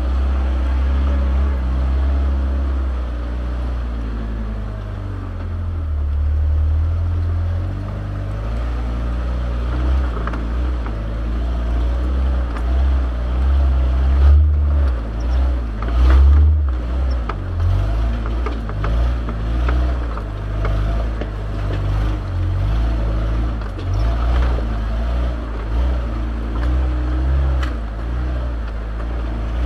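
Off-road vehicle's engine running with a steady low drone while crawling along a rocky dirt trail. From about the middle on, short knocks and rattles from the vehicle jolting over rocks come and go.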